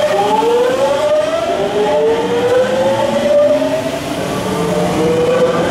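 Tokyu 9000 series electric train's Hitachi GTO-VVVF inverter whining as the train accelerates away, a stack of tones climbing steadily in pitch. A little past four seconds the tones shift to a new set and climb again as the inverter changes stage.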